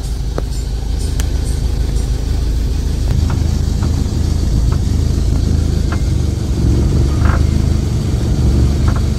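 Suzuki Esteem idling with the radiator fan and AC running, with irregular short creaking clicks ('krek krek') coming from the left side. The creak comes from worn, loose door hinges that let the door shift with the engine's vibration.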